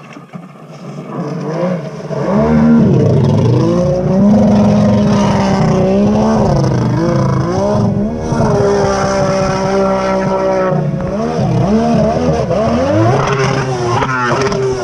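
Kawasaki 650SX stand-up jet ski with a swapped-in 1100cc two-stroke engine, very loud, growing louder over the first two seconds as it comes closer. The throttle then rises and falls several times, and it revs up sharply a few times near the end.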